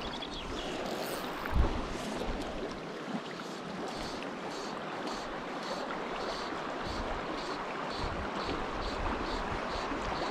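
Rushing water of a fast-flowing river running high and swollen, with gusts of wind thudding on the microphone. From about four seconds in, a short high note repeats about three times a second over the water.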